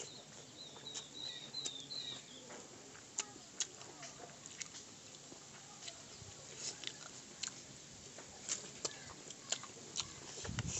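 Close-up eating by hand: chewing and smacking of a mouthful of noodles, with scattered sharp wet clicks of fingers and food on a metal plate. A bird chirps a quick run of short notes near the start.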